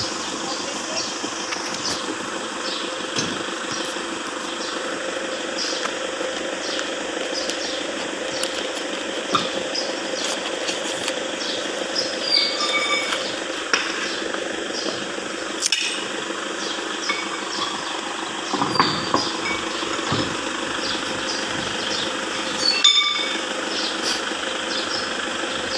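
Steady motor hum in a repair workshop, with scattered light metallic clinks and taps from hand tools and brake parts being handled, and a few sharper knocks.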